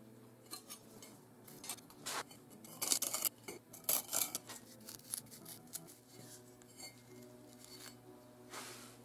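Short scratches and light metallic clicks from steel dividers scribing circles into soft insulating firebrick and tapping on a steel anvil, in irregular bursts that are loudest about three and four seconds in.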